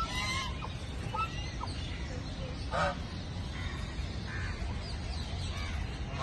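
White domestic geese honking now and then as they crowd in to be fed, with the loudest honk about three seconds in, over a low steady background rumble.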